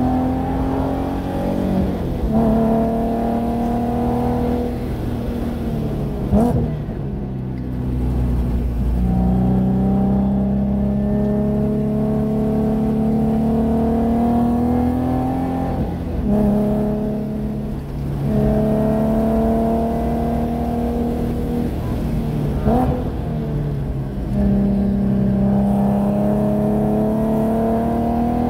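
2014 Nissan 370Z Nismo's 3.7-litre V6 under hard acceleration, heard from inside the cabin, climbing steadily through the revs around 5,000 rpm in third gear. The note falls away several times as the throttle is lifted for corners, with a few quick rev spikes.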